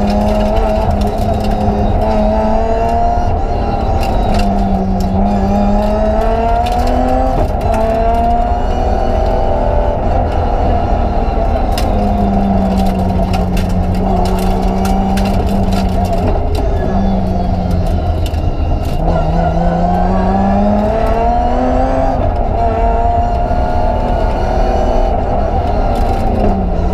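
BMW 325 Group A rally car's straight-six engine heard from inside the cabin at full stage pace. Its note keeps climbing and falling as it accelerates, lifts and shifts gear, with a few sudden drops in pitch. Sharp clicks and knocks sit over a steady low road rumble.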